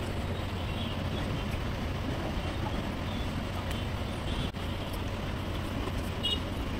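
Steady background noise with a low hum underneath, and a faint, brief high chirp near the end.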